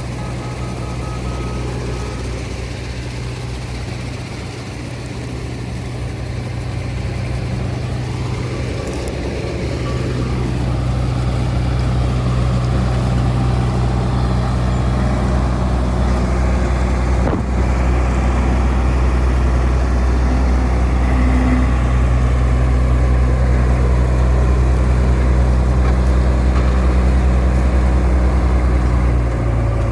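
Combine harvester engine running with a steady low drone, growing louder about a third of the way in.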